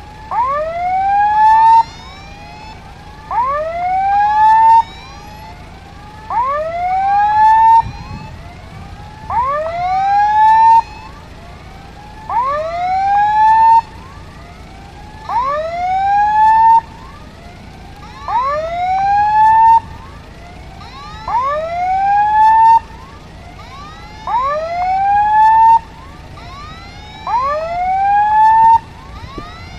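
Railway level-crossing warning alarm sounding: a rising electronic tone in regular bursts, about a second and a half on and a second and a half off, repeating every three seconds. It is the crossing's warning that a train is approaching.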